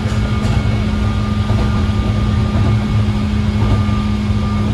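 A 103 series DC electric commuter train running at speed, heard from inside the car. A steady motor whine sits over the low rumble of the wheels on the rails.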